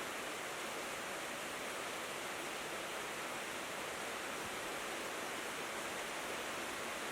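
Steady rain falling on a tin roof, an even hiss with no single drops or gusts standing out.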